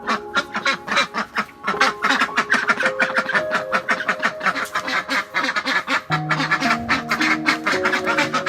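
A dense run of quick, repeated animal calls over background music with held notes; a lower note joins about six seconds in.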